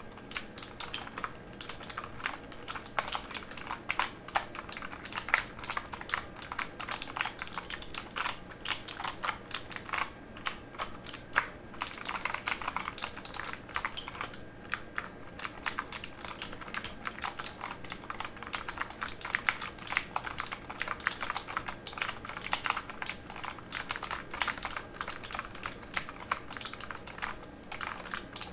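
Typing on a mechanical computer keyboard: a steady run of key clicks at several per second, with short pauses here and there.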